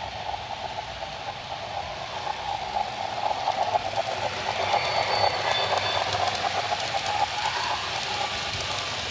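Model freight train running along the layout track, its wheels making a rapid, steady clatter on the rails that grows louder as it comes near.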